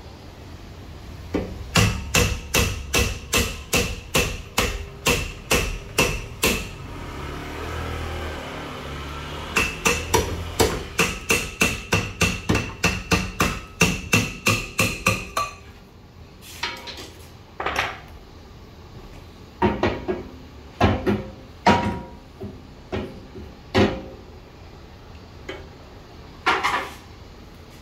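Hammer beating on metal at the car's rear wheel brake, at about two to three ringing blows a second. There are two long runs of blows with a short lull between them about seven seconds in, then slower, scattered knocks.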